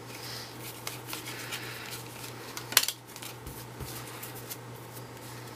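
Trading cards and packs being handled on a table: light rustling and small ticks, with one sharp click about three seconds in, over a steady low hum.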